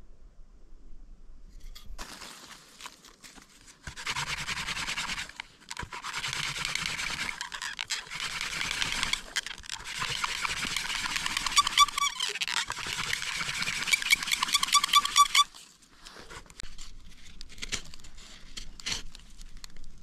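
Hand-drill friction fire: a wooden spindle twirled between the palms into a notched grass tree flower-stalk hearth board, giving a steady dry scraping that grows stronger, turns rhythmic with short squeals of wood on wood, and stops suddenly a few seconds before the end.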